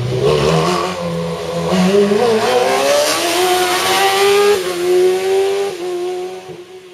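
Slalom race car's engine revving hard as it accelerates through the cones, rising and dipping in pitch with the throttle. It fades in the last second or so as the car pulls away.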